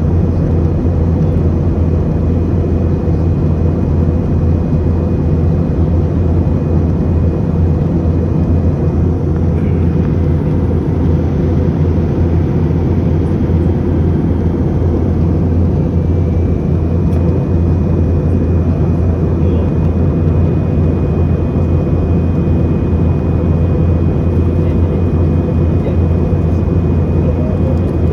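Steady low drone of an airliner's cabin in flight, the engine and airflow noise heard from inside the cabin, unchanging throughout.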